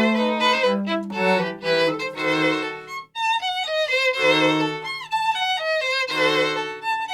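Small baroque orchestra playing live, the violin standing out, with sustained bowed notes moving in phrases and a brief break about three seconds in.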